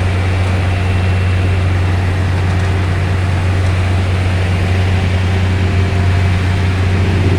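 Diesel engines of a concrete mixer truck and a concrete pump running steadily, a deep even hum.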